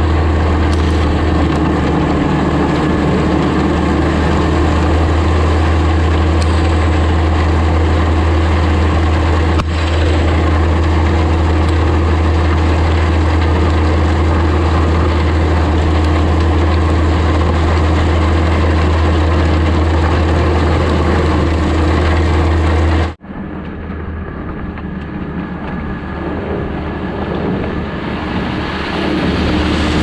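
Tracked skid steer's engine running steadily under load while its grader attachment's blade scrapes and rolls loose gravel, a loud, even drone. A little over three-quarters of the way through, the sound cuts sharply to a quieter take of the machine running over the gravel.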